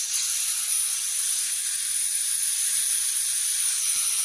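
Airsoft gas can charging a gas blowback pistol magazine through its bottom fill valve: a loud, steady, high hiss of gas rushing in.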